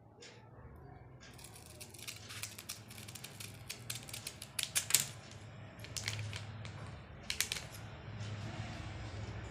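Steel scissors snipping through folded paper in a quick run of sharp cuts, loudest about halfway through.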